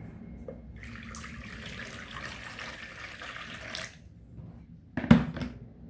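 Water running from a kitchen tap for about three seconds, then cutting off. About five seconds in, a single sharp knock of something hard being set down.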